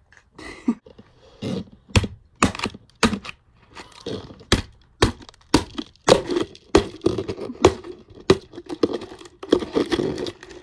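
A string of sharp, irregular cracks and clicks, an egg being cracked and pried open, some strikes with a short hollow ring.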